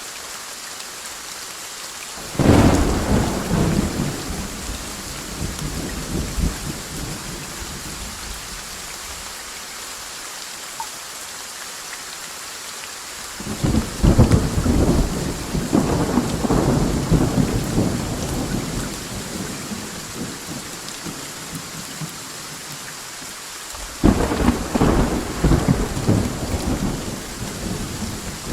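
Steady rain falling, broken by three claps of thunder that each start suddenly and rumble away over several seconds: one about two seconds in, one near the middle, one near the end.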